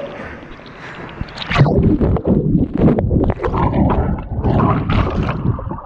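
Water splashing and sloshing close to the microphone as a person swims through a cold creek pool, turning loud and uneven about a second and a half in.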